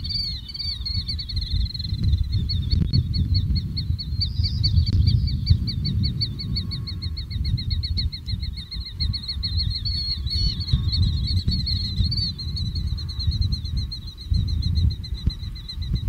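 A shorebird calling in a long, rapid, unbroken series of high, evenly spaced notes. Under it runs a loud low rumble of wind on the microphone.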